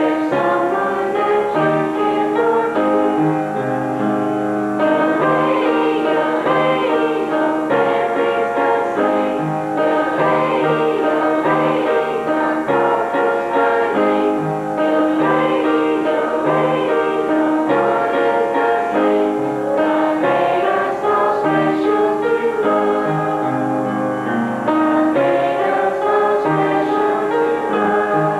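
A choir singing with piano accompaniment, the voices holding long chords.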